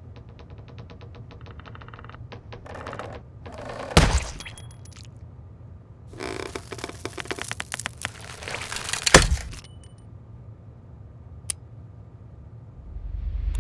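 Cutter jaws crunching through the metal tip of a ballpoint pen: a run of fast creaking clicks, then a sharp snap about four seconds in. A longer crackling crunch follows and ends in a second loud snap about nine seconds in.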